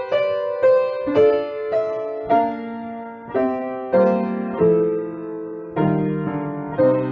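Solo piano playing a slow, gentle melody over chords, with a new note or chord struck about every half second to a second and each one ringing on as it fades.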